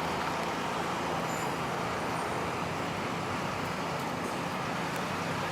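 Steady road traffic noise: cars and other vehicles running along a nearby street.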